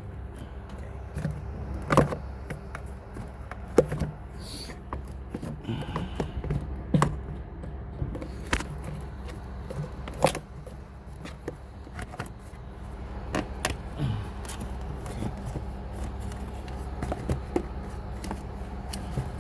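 Scattered sharp clicks and knocks of parts and connectors being handled and reconnected in a car's engine bay, over a steady low hum.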